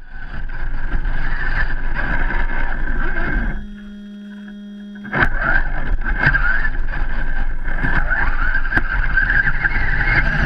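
Electric motor and geartrain whine of a radio-controlled rock crawler, heard from a camera mounted on it as it drives through snow. The pitch wavers with the throttle. The drive cuts out for about a second and a half in the middle, leaving only a faint steady hum, then starts again with a sharp click.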